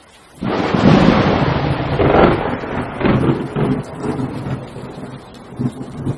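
A loud rumbling crash starts suddenly under half a second in, then dies away over several seconds in uneven rolling rumbles. It is an added sound effect under a slide change.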